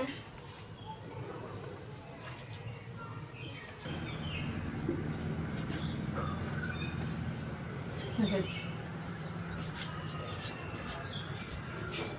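Insects chirping in a rural soundscape, short high chirps repeating about once a second. A low steady hum comes up from about four seconds in.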